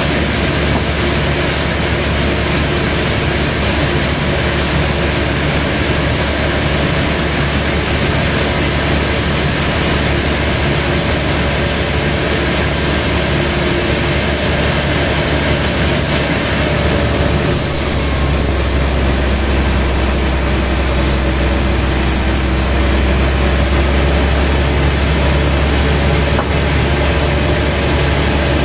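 Sawmill machinery running loudly and steadily, a dense mechanical noise over a low hum. About two-thirds of the way in, the low hum grows stronger.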